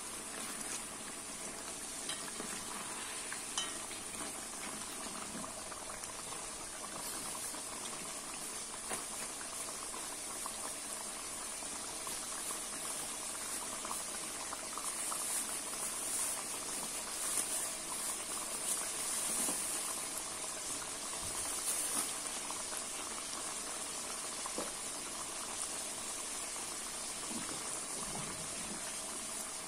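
Pieces of duck frying in hot oil in a kazan: a steady sizzle with scattered crackles, louder for a stretch around the middle.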